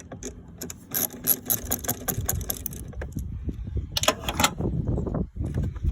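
Rapid metallic clicking of a hand tool working the nut on a car's negative battery terminal clamp, with rubbing and knocking as the terminal is worked loose, and a short second run of clicks near the end.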